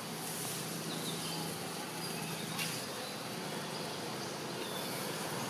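Steady high-pitched insect drone in the background, with a faint low hum through roughly the first half and a few brief faint chirps.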